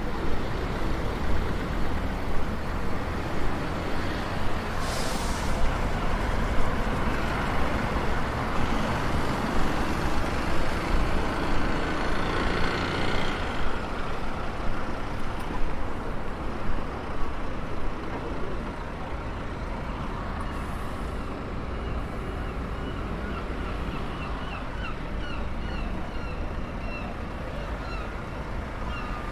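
City street traffic: buses and cars passing over a steady wash of road noise. It is louder in the first half and eases off after about eighteen seconds. A run of short high chirps comes in near the end.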